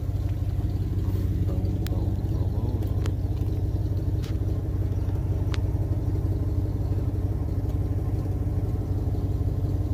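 Steady low machine hum, like a motor or engine running, with a few faint clicks.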